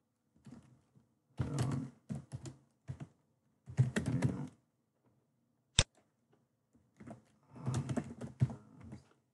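Computer keyboard typing in short bursts of keystrokes, with a single sharp click partway through.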